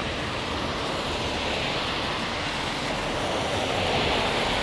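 Cars passing on a rain-wet road: a steady hiss of tyres through surface water, swelling a little about four seconds in.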